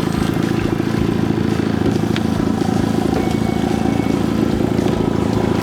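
Boat's outboard motor running steadily at trolling speed, an even hum, with one brief click about two seconds in.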